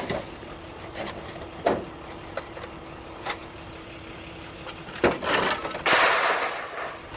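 Pieces of scrap metal tossed onto a scrap pile: a few separate clanks, a louder one about five seconds in, then a noisy clatter lasting about a second, over a steady low hum.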